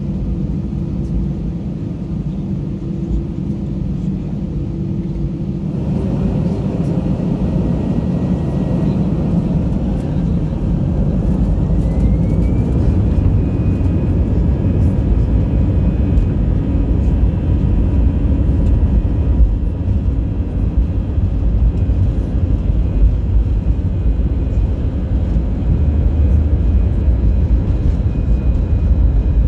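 Airbus A320 jet engines spooling up to takeoff thrust, heard inside the cabin: a steady hum, then a building roar about six seconds in, with a whine that rises in pitch and holds steady as the takeoff roll gathers speed.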